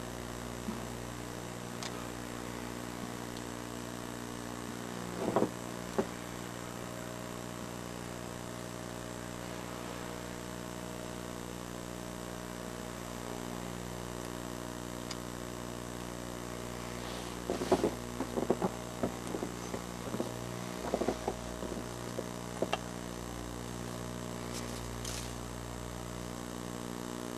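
A steady low hum with a stack of overtones, broken by a few short knocks and rustles about five seconds in and again in a cluster in the second half.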